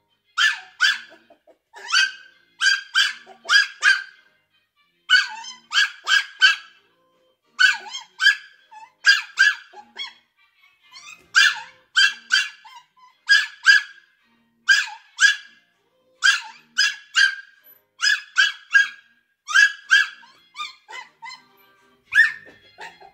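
Maltese puppy yapping: short, high-pitched yaps in quick clusters of two to four, repeated every second or two.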